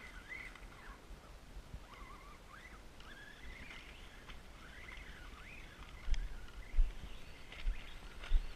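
Birds calling outdoors: a series of short rising and falling chirps and whistles. In the second half there are a few dull low thumps, the loudest sounds here.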